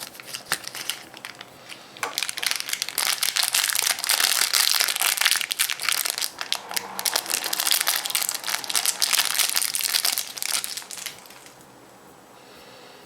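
Wrapper of a surprise egg crinkling as it is handled and unwrapped: a few scattered crackles, then dense continuous crinkling from about two seconds in that stops near the end.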